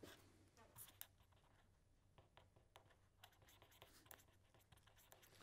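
Near silence with faint scratches and light ticks of a pen writing on paper.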